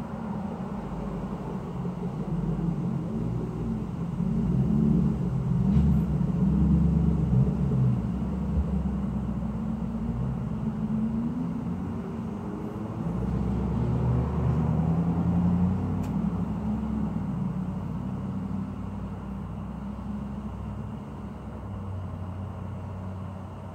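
Low rumble of motor vehicles passing, with engine hum that bends slightly in pitch. It swells twice, about a quarter of the way in and again just past the middle, then fades.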